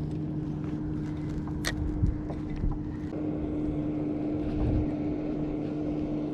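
Steady engine hum of a motorboat running at an even pitch, with a couple of sharp light clicks about two seconds in.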